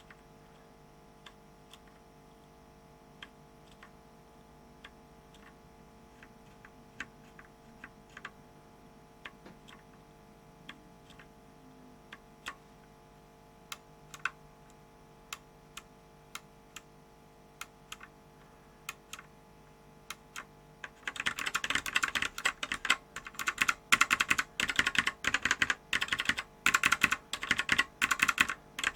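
Bare Alps SKCM mechanical key switches, cleaned and reassembled but not fitted in a keyboard, clicking as they are pressed one at a time, with single faint clicks spaced about a second apart. About two-thirds of the way in, this gives way to much louder rapid clicking like fast typing.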